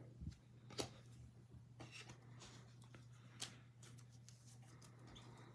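Faint handling of trading cards and their packaging, with a few short sharp clicks, the loudest about a second in, over a steady low hum.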